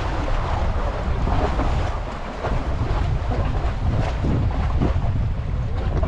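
Wind buffeting the microphone in a steady low rumble, with small waves splashing against shoreline rocks.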